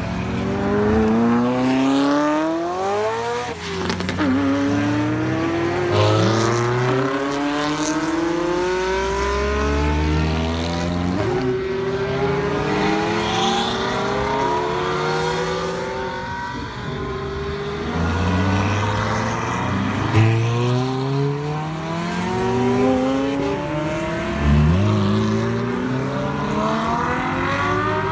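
Ferrari sports cars accelerating hard away one after another. Each engine's pitch climbs through the gears and drops sharply at every upshift, and the cars overlap as the next one pulls off.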